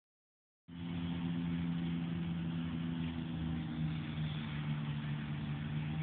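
Steady engine hum with a low drone, starting abruptly just under a second in.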